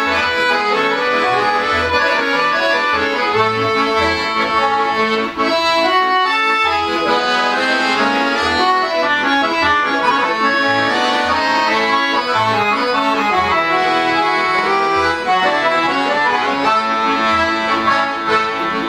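An ensemble of six piano accordions playing together: chorded melody over low bass notes that recur in a steady pulse.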